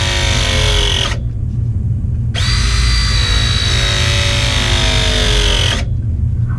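ProPress pressing tool crimping copper fittings: the motor whines with its pitch slowly sinking as the jaws close, stops abruptly about a second in, then a second press cycle starts after a short pause and stops near the end. A steady low hum runs underneath.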